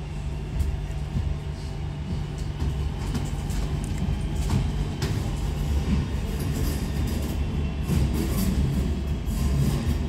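Interior running noise of a Class 323 electric multiple unit in motion, heard from inside the passenger saloon: a steady low rumble with scattered light clicks and rattles.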